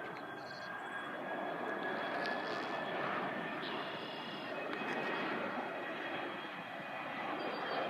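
A regional jet's engines at takeoff power, heard from a distance: a steady roar with a thin high whine that rises slowly in pitch.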